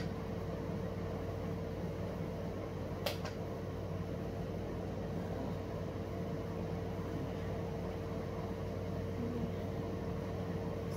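Steady low mechanical hum of a running appliance, with a thin steady higher tone over it and one sharp click about three seconds in.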